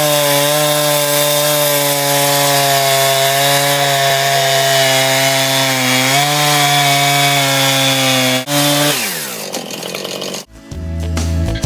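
Gas-powered stone-cutting chainsaw with a diamond chain, water-cooled, running at steady high speed as it cuts through a rock boulder. About eight and a half seconds in, it drops off and winds down.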